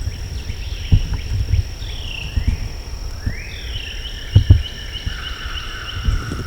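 Songbirds singing slurred, downward-sliding whistles and, about three seconds in, a longer trill of quick repeated notes, over a steady high insect drone. Low thumps come and go beneath them.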